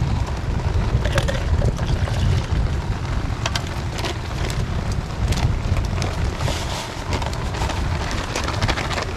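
Wind buffeting the microphone: a steady low rumble, with scattered faint ticks and clicks over it.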